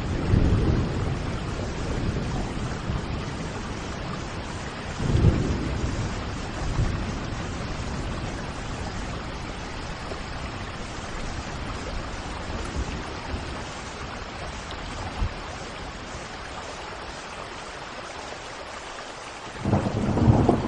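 Steady rain hiss, with low rumbles of thunder swelling near the start, again about five seconds in, and most strongly just before the end.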